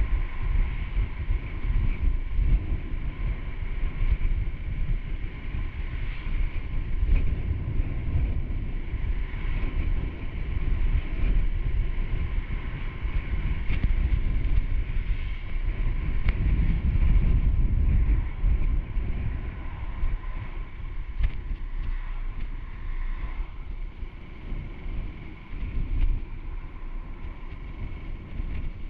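Honda Super Cub C125's single-cylinder engine running as the motorcycle rides along, heavily mixed with wind buffeting on the microphone. It swells louder a little past the middle.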